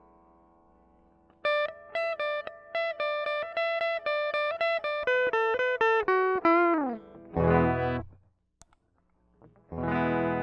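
Electric guitar played through effects pedals: a held note fades out, then a quick run of picked repeated notes steps down in pitch and ends in a downward slide. A loud strummed chord follows, a short silence, and another chord near the end.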